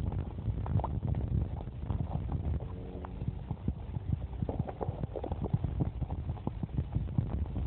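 Underwater sound of a spring-fed stream picked up through an underwater camera: a muffled low rumble of moving water with many irregular small clicks and knocks, and a short low buzz about three seconds in.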